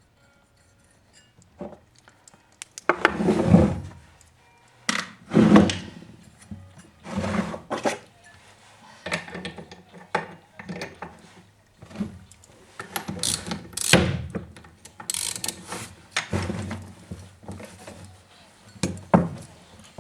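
Irregular knocks, clicks and rattles of hand tools and parts being handled while working on a petrol chainsaw. They start about a second and a half in, with several louder clattering handlings among the lighter clicks.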